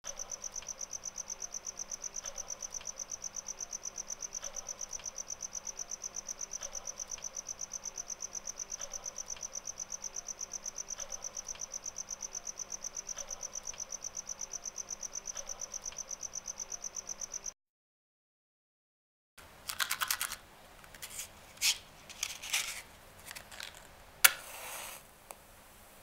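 Cricket chirping: a steady, high, rapidly pulsing trill. It cuts off about two-thirds of the way through, and after a short pause comes a run of sharp clicks and scratchy bursts.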